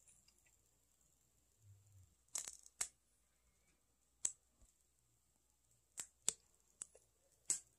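Tealight candle flame sputtering: about seven faint, sharp crackles and pops spread out over a few seconds, with near silence between them.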